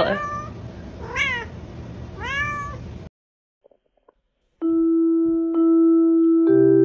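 A cat meowing three times, short calls that rise then fall in pitch, about a second apart. The calls stop abruptly, and after a brief silence soft music of long held notes begins.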